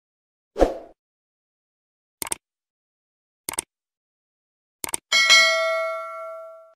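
Subscribe-button animation sound effects: a short swish, then three quick double mouse clicks spaced over a few seconds, and a bell ringing out and fading near the end as the notification bell is pressed.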